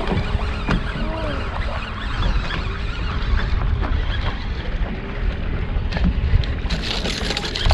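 Wind rumbling on the microphone with faint voices in the background; about seven seconds in a brighter hiss comes up.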